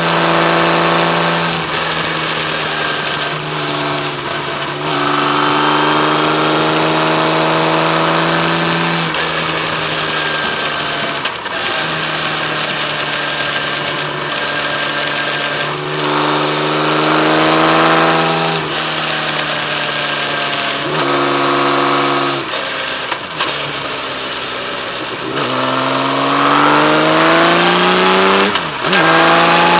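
Kawasaki Z1300's inline-six engine pulling under load. Its pitch climbs several times and drops back at each gear change, with the strongest climb near the end.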